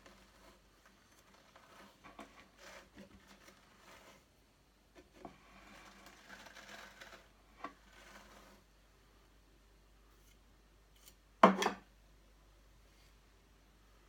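Wool being worked through a hand-cranked drum carder: soft, intermittent scratching and rustling of the fibres on the wire-toothed drums for about the first eight seconds. About eleven and a half seconds in comes a single sharp knock, the loudest sound.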